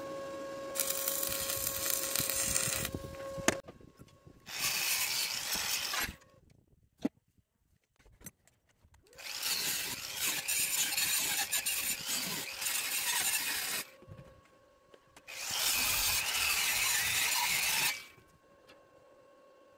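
Angle grinder grinding a steel frame's welded corners in several passes of a few seconds each, a harsh hiss of disc on metal. Between passes the motor's steady whine is heard running free, and it stops for a few seconds near the middle.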